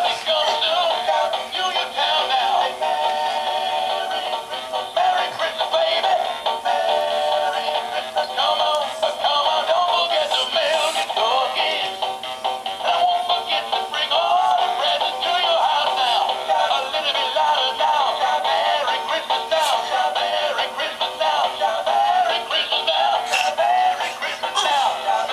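Animated plush singing puppy toy playing a song through its small built-in speaker: an electronic singing voice over music, thin and without bass, running without a break.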